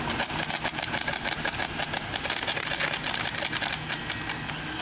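Rapid popping of the BB cannons on radio-controlled scale model warships, fired in quick rattling volleys of many shots a second.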